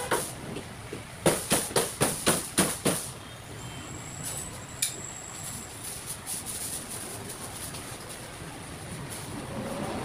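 Cleaver chopping roast chicken on a chopping board: a quick run of about six chops about a second in, over steady street traffic noise.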